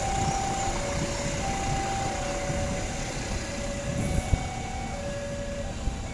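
Passenger train's wheels rumbling on the rails as the last coaches pass and draw away, with a couple of sharp clacks about four seconds in. Over it, an electronic warning tone alternates steadily between two notes.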